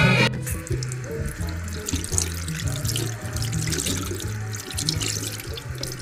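Tap water running into a sink while soapy hands are washed under it, over background music with a steady bass line.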